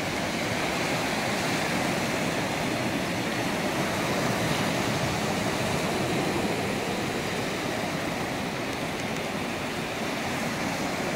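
Small sea surf breaking in several lines and washing up over a sandy beach: a steady, unbroken rushing of water.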